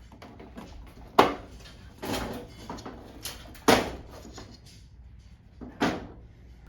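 Metal projector cage being handled: three sharp clanks, about one, three and a half and six seconds in, with rattling and scraping of the panels between them.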